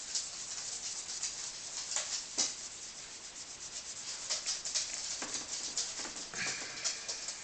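Cloth rubbing Brasso over the brass body of an Optimus No. 415 blowtorch by hand: quick, irregular scratchy rubbing strokes, with a few harder swipes.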